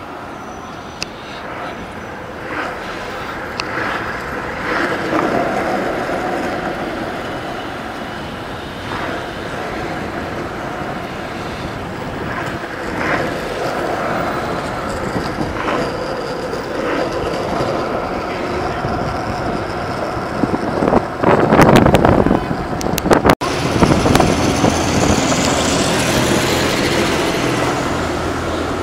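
City street traffic noise picked up by a small built-in camera microphone: a steady rumble and hiss of passing vehicles. About 21 seconds in there is a loud rushing burst, followed by a brighter hiss that slowly fades.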